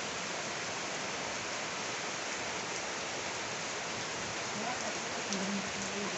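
Heavy rain falling steadily, an even hiss with no breaks. A faint voice comes in near the end.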